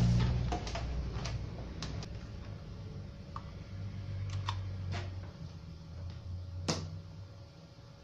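Handling noise of a Sony CRT television being turned around on a workbench and its power plug and adapter being fiddled with: scattered clicks and knocks over a low rumble, with one sharper click about seven seconds in.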